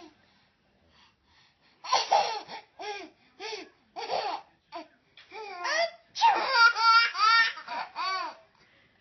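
Baby laughing in short bursts of giggles, starting about two seconds in. Near the end they turn into a quick run of high-pitched giggles.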